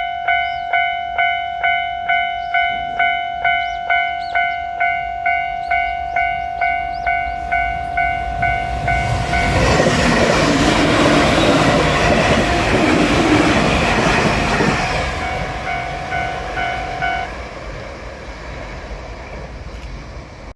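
Level-crossing warning bell dinging steadily about twice a second as a JR Shikoku 8000 series limited-express electric train rushes past, loud for about five seconds from roughly halfway in. The bell stops a couple of seconds after the train has gone, and the train's rumble fades away.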